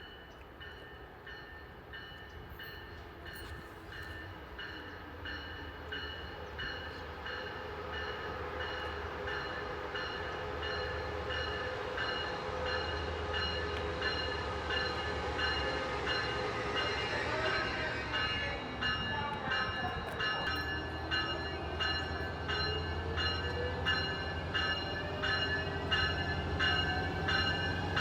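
A train approaching, its rumble growing steadily louder, over a bell ringing steadily about twice a second.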